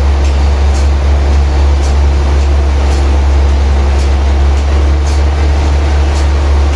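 Heavy sawmill machinery running with a loud, steady low drone, with faint light ticks about once a second.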